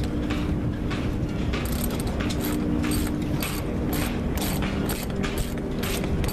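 Ratchet wrench being cranked on the nut of a homemade bearing puller, with short bursts of ratchet clicks about twice a second. It is pressing the old cutless bearing out of a sailboat's propeller-shaft strut. A steady low hum runs underneath.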